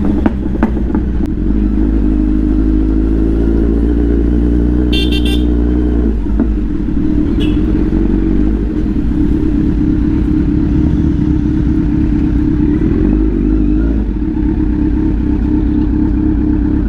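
Kawasaki Z900's inline-four engine running steadily at low revs while the motorcycle rolls slowly and pulls up. A brief high beep sounds about five seconds in.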